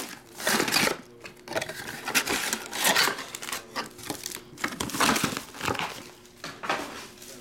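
Clear plastic wrapping crinkling in irregular bursts while a card box is handled and slid out of it, with a few brief tearing-like rustles.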